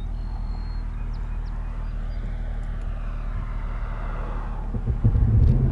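1996 Jeep Grand Cherokee's 4.0 L inline-six running under way, heard from inside the cabin, stumbling with a random misfire the owner has not traced despite a new coil, plugs and distributor. About five seconds in a loud, steady buzz starts, which the driver puts down to the brakes: the ABS pulsing from a broken ABS tone ring.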